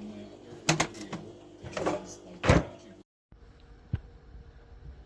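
Sharp knocks and clicks of a small table-top fridge being handled, its door and fittings opened and shut, about five of them in the first two and a half seconds. After a brief cut there is quieter room tone with one light tap.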